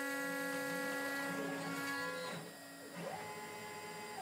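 CNC router at work cutting MDF: the 2 kW water-cooled spindle runs with a steady whine while the stepper-driven axes move the bit. The held tones change about halfway through, as the machine shifts speed or direction.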